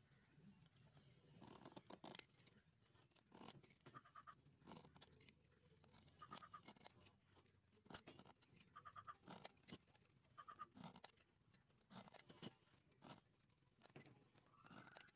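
Faint, irregular scraping and clicking of a steel-pointed scriber drawn along a steel rule across a steel bar, marking a line.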